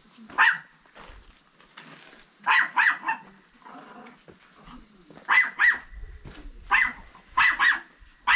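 A dog barking repeatedly: about eight short, high-pitched barks, several coming in quick pairs.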